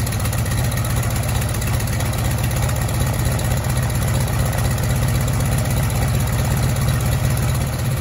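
Cessna 195's seven-cylinder Jacobs radial engine running steadily just after starting. The carburetor has been rebuilt and its leaking float needle valve fixed, and the engine now runs.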